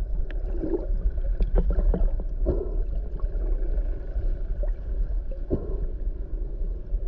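Muffled underwater water noise picked up by a submerged camera: gurgling and sloshing with a steady low rumble and scattered short clicks and pops.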